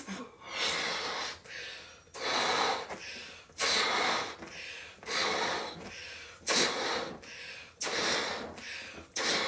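A person blowing up a balloon by mouth: about seven forceful puffs of breath into the balloon, each about a second long, with quick breaths taken in between.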